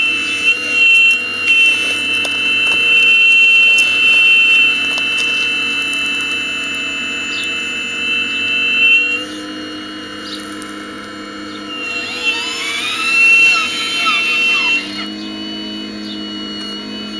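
The motors of a radio-controlled model Hitachi Zaxis 870 excavator whine steadily and high-pitched as it digs. About twelve seconds in, the whine sweeps up and down for a few seconds as the machine works, then settles back to a steady tone.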